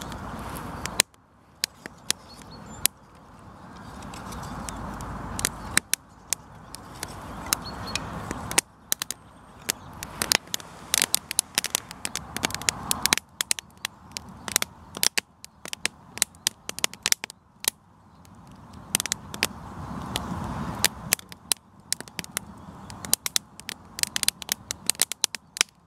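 Fire of split-stick kindling catching and burning, crackling and popping with many sharp snaps throughout. Several swells of rushing noise build over a few seconds and cut off suddenly.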